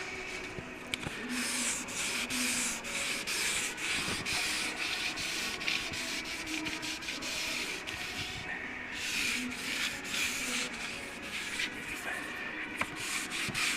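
Wet block sanding of a paint run with a Johnny BLOX sanding block: quick, repeated back-and-forth rubbing strokes, with a brief pause about eight and a half seconds in. The strokes are levelling the run flat into the surrounding paint.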